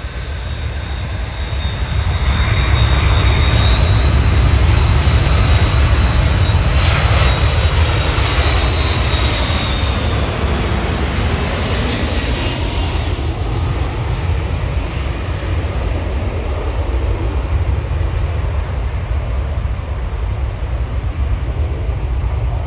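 Twin-engine jet airliner passing low overhead on final approach, engines running with a deep rumble and a thin high whine. The sound builds over the first few seconds and peaks as it goes by; the whine stops about ten seconds in, and the rumble slowly fades as the plane touches down and rolls away.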